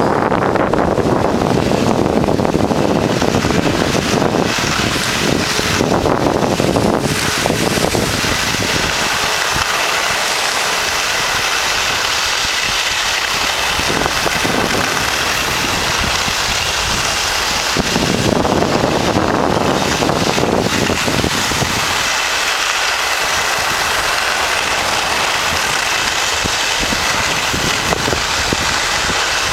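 Wind rushing over the microphone of a camera carried by a moving skier, with the steady hiss of skis sliding on packed snow. The low rush is heavier for the first several seconds and again about two-thirds of the way through.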